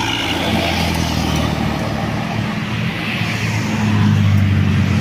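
Diesel engine of a heavy bus passing close by, a steady low hum with road noise, growing louder about four seconds in.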